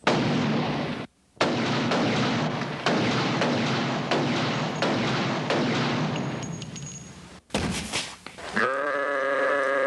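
A long stretch of rapid gunfire, with a brief break about a second in and dying away by about seven seconds. A short loud burst follows, then an animal starts bleating with a wavering pitch near the end.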